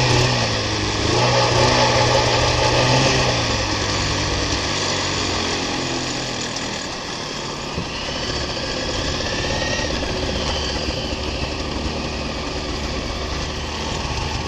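Snowmobile engine running while riding a downhill trail. The engine is louder and its pitch shifts over the first three seconds, then it settles to a steadier, lower running note over a constant rushing noise.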